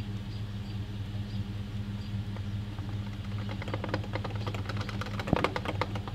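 Chevrolet Silverado pickup's engine idling steadily while a bottle of fuel additive is emptied into the fuel filler neck. From about halfway through there is irregular glugging and clicking as the liquid pours in, with one knock near the end.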